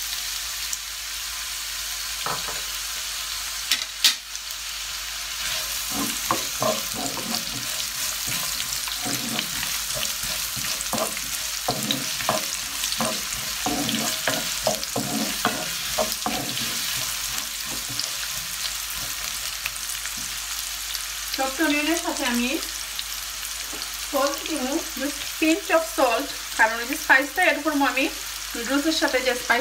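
Sliced onions sizzling in hot oil in a nonstick frying pan, with a steady hiss, stirred with a wooden spoon that knocks and scrapes against the pan through the middle. Short pitched sounds come in over the sizzle near the end.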